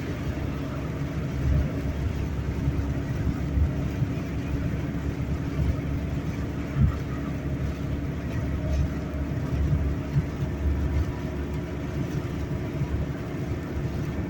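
Steady low road and engine noise heard inside a moving car's cabin, with a single short thump about seven seconds in.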